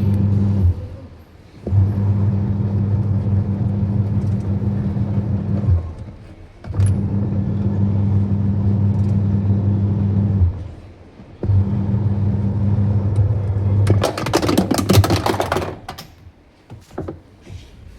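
Washing machine motor driving a newly replaced gearbox through its wash action: a steady electric hum that runs for about four seconds at a time and stops for about a second between runs, as the motor reverses direction. Near the end a louder noisy burst lasts about two seconds.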